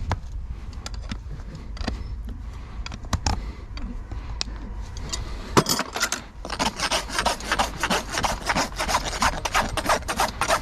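Farrier's rasp filing a horse's hoof wall in quick, even strokes, starting about six seconds in after a few scattered taps and knocks.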